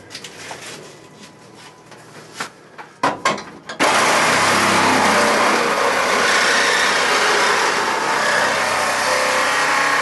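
A few light knocks as the saw is set in place, then about four seconds in a reciprocating saw starts and runs steadily, cutting through the old sheet-steel floor pan of a 1974 Plymouth Duster.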